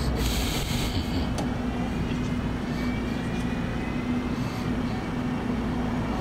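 Steady engine hum, with a faint whine rising slowly in the middle.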